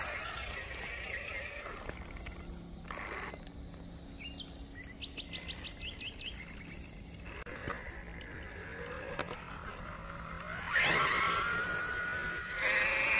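Axial Wraith radio-controlled rock crawler's electric motor whining and rising in pitch as it drives, with louder bursts of noise near the end. A bird chirps a quick run of rising notes about five seconds in.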